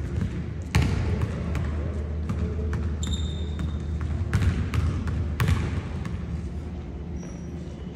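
Basketballs bouncing on a hardwood gym floor: irregular thuds that echo in a large hall, with a short high squeak about three seconds in and a fainter one near the end.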